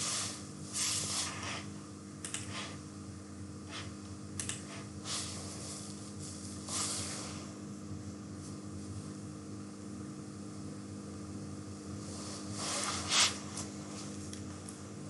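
A person breathing close to the microphone: several short breaths, the loudest near the end, over a steady low hum.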